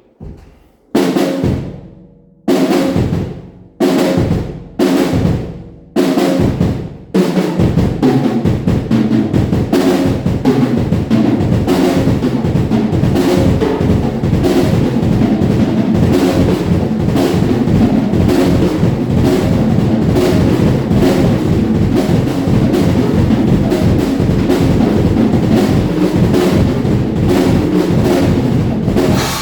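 Acoustic drum kit played in a living room: about six separate hits roughly a second apart, each left to ring out, then from about seven seconds in a fast, unbroken run of drumming.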